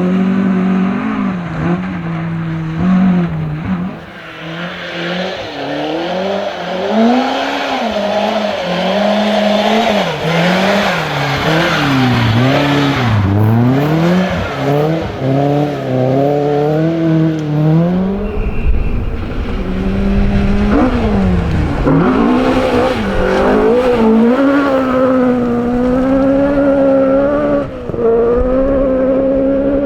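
Rally car engines revving hard, the pitch climbing and dropping again and again through gear changes and lifts. About 18 seconds in the sound changes abruptly to another car, with a heavier low rumble.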